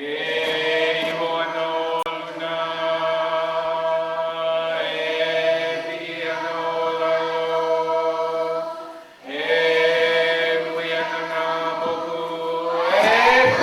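Voices chanting in long, steady held notes: one phrase of about nine seconds, a brief break, then a second held phrase, with a voice sliding upward near the end.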